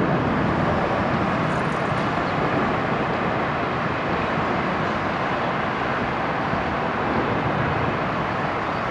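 Steady city traffic noise, an even hum without distinct events.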